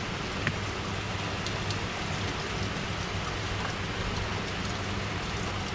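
Heavy hurricane rain falling steadily, a dense even hiss with scattered drop ticks.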